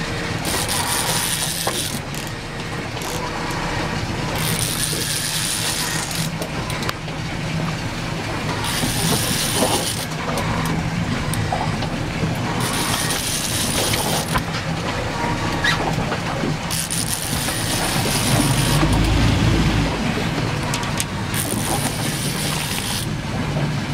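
A charter fishing boat's engine runs with a steady low hum, and a hissing swish rises and falls about every four seconds.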